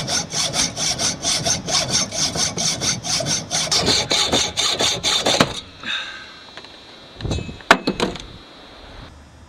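Hacksaw cutting in quick back-and-forth strokes, about four a second, for about five and a half seconds, then stopping. A few knocks follow near the end.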